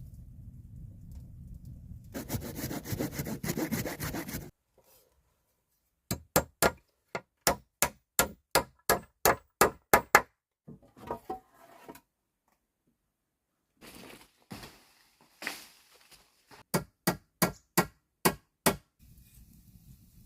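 Hand saw cutting wood in quick, regular strokes, about four a second, in several short bursts that start and stop abruptly, with a longer rough stretch of rasping near the start.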